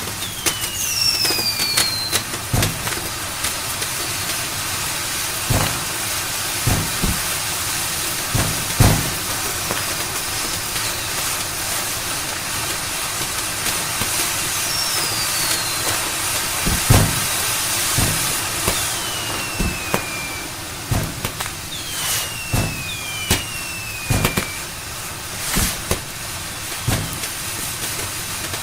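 Fireworks going off: about half a dozen whistling rockets, each whistle falling in pitch, with scattered sharp bangs over a constant hiss of fountains.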